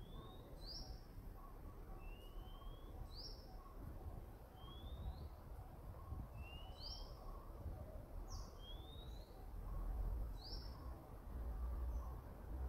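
A bird repeating a two-note call about every two seconds, a short rising whistle and then a higher, quickly falling note, over a low rumble.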